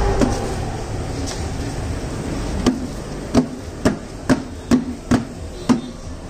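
Rice grains sliding and pouring out of a tipped aluminium pot, then seven sharp metallic knocks on the pot, about two a second, to shake loose the last grains.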